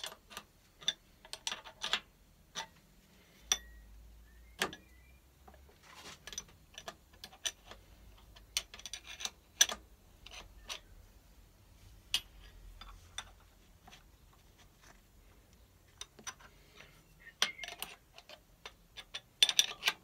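Irregular metallic clicks and clinks of hand tools against a Myford lathe's three-jaw chuck and steady as a workpiece is set up, with the lathe not running. They come in a few clusters, the loudest near the end.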